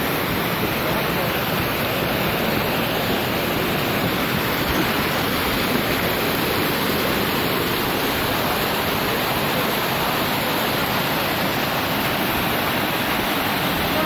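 Mountain stream cascading over boulders: a steady, loud rush of water.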